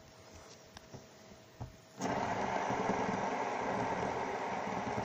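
Fidget spinner whirring as it spins on the ground. The whirr starts suddenly about two seconds in, after a few faint clicks, and runs steadily.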